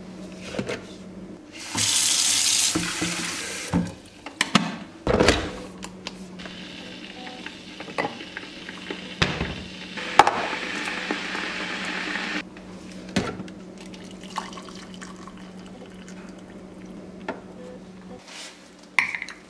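Water running in a kitchen: a loud burst about two seconds in, then a longer, softer stretch of running or pouring water, with sharp knocks and clinks as a ceramic mug and a stainless steel electric kettle are handled and set down. A low, steady hum lies underneath.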